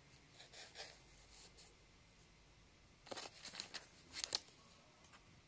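Faint, short scratchy rustles against a small cardboard box: a couple just under a second in, then a quick cluster from about three to four and a half seconds in.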